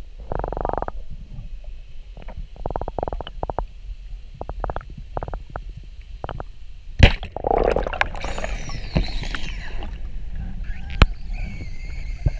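Speargun fired underwater at a wahoo: a sharp, loud crack about seven seconds in, followed by a few seconds of scraping and rattling as the shaft and line run out. Scattered small clicks come before the shot, and another sharp click follows a few seconds after it.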